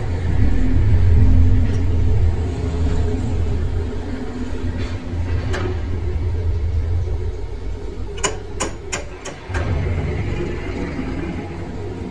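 Metal lathe running with a deep rumble as its four-jaw chuck spins a hex nut, loudest for the first few seconds. A quick run of sharp metallic clicks and knocks comes about eight seconds in.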